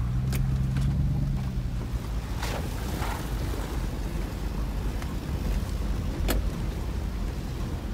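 Four-wheel-drive SUV driving slowly on a gravel track, heard from inside: a steady low engine and tyre rumble, with a few sharp ticks and knocks from the rough surface.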